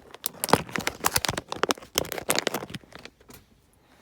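A rapid, irregular run of small plastic clicks and rustles as hands handle a replacement LED map-light bulb and the plastic map-light housing. The clicking stops a little before three seconds in.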